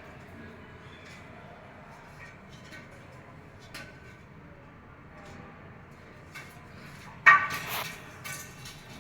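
A few faint clicks and knocks over a low background, then one loud, brief grating sound a little over seven seconds in.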